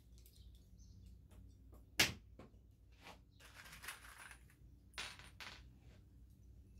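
Bench-work handling noises: a sharp knock about two seconds in, then a short rattle and metallic clinks of small pocket-hole screws tipped out onto the wooden tabletop.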